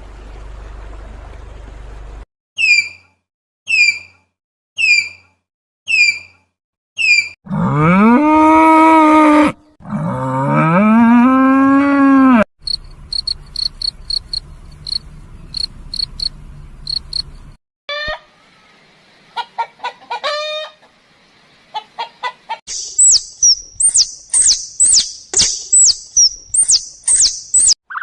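A string of different animal calls, one after another: six short chirps, then two long, drawn-out moos from cattle, then high chirping and trilling, and near the end a fast run of high, repeated calls.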